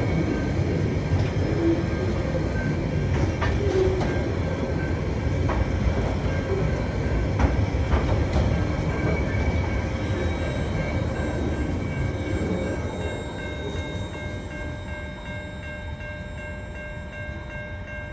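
Freight wagons of a Tasrail train, container flats and cement tank wagons, rolling past: a steady rumble of wheels on rail with scattered clanks. The rumble fades over the last several seconds as the end of the train goes by.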